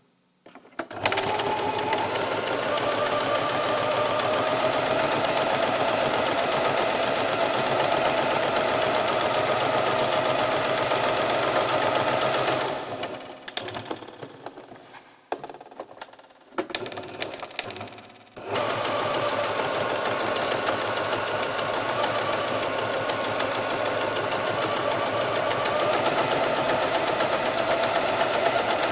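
A small machine running with a rapid, even clatter and a steady hum. It starts about a second in, falters and cuts in and out from about twelve seconds in, and runs steadily again from about eighteen seconds.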